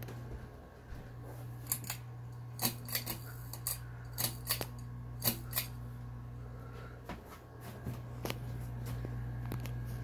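Monte Carlo mini ceiling fan running with a steady low motor hum, with about a dozen sharp clicks between roughly two and six seconds in.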